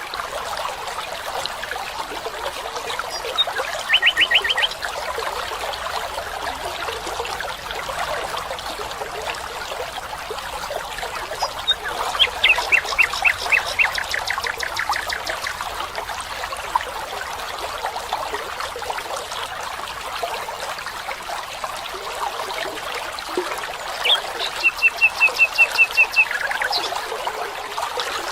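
A stream trickling and splashing steadily, with a small bird singing three short rapid trills of repeated notes over it: one about four seconds in, a longer falling trill around the middle, and one near the end.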